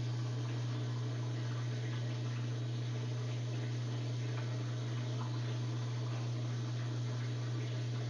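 Drain pump of an LG Prime front-loading washing machine running with a steady low hum while water gurgles out of the drum, the washer draining after the wash.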